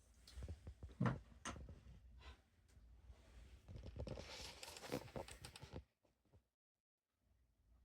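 Quiet handling noises: a few soft knocks about a second in, then rustling and scraping for a couple of seconds. After that the sound drops out completely for over a second.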